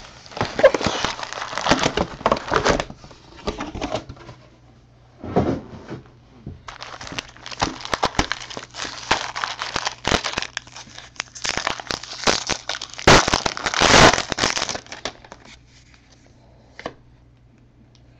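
Foil wrappers of trading-card jumbo packs crinkling and tearing as they are ripped open, in uneven spells with the loudest crackling about two-thirds of the way through. It dies down near the end, where the cards are handled.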